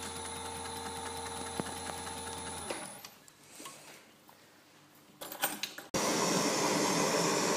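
A small bench motor hums steadily, then stops about three seconds in, leaving a quiet stretch with a few clicks and knocks. About six seconds in, a hand-held butane cartridge torch's flame starts a steady hiss, the loudest sound, as it heats a watch bezel to melt its glue.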